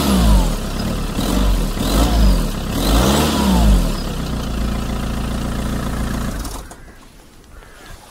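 Fiat Multipla's 1.9 JTD turbo diesel engine blipped through two short revs, with a thin turbo whistle rising and falling with each one. It then settles into a steady idle, and the sound drops away sharply near the end.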